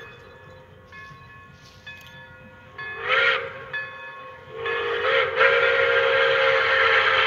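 Pere Marquette 1225, a 2-8-4 Berkshire steam locomotive, blowing its steam whistle: a soft held note, then a short loud blast about three seconds in, then a long loud blast from past halfway, each loud blast bending up slightly in pitch as it opens.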